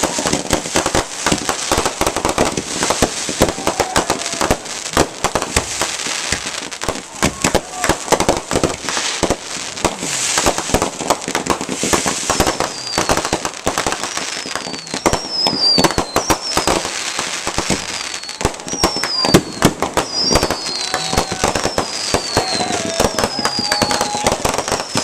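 Fireworks going off in a rapid barrage of crackling bangs and pops. From about halfway through, short high whistles falling in pitch repeat about once a second over the crackle.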